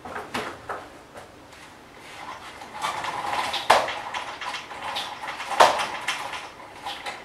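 Handling clatter: a leather bag and items knocked and shuffled on a desk while a pull-down projector screen is drawn down. Small knocks come first, then a rustling clatter with two sharp clacks, about three and a half and five and a half seconds in.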